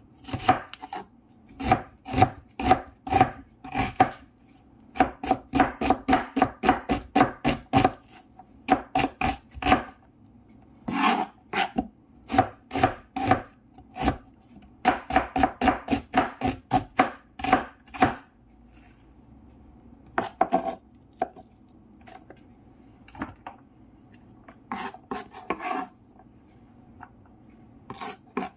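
Chef's knife chopping a red onion on a wooden cutting board: quick runs of knife strokes knocking on the wood, about three a second, with short pauses between runs. In the last third the strokes come only now and then.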